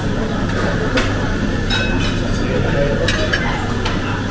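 Buffet restaurant ambience: a steady low hum and background chatter, with several light clinks of china and metal serving utensils.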